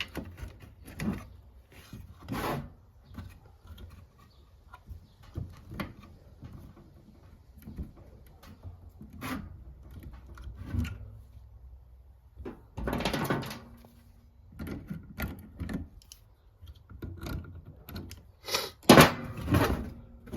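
Clear plastic tubing and fittings being handled and pushed into place: scattered clicks and knocks with rubbing, and longer rustling scrapes about 13 seconds in and again, loudest, near the end.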